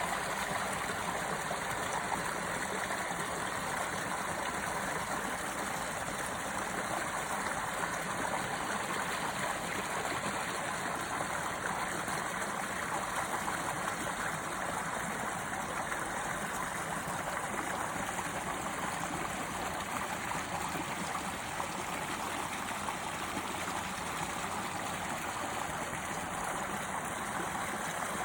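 Running water flowing steadily outdoors: an even, unbroken hiss that holds the same level throughout.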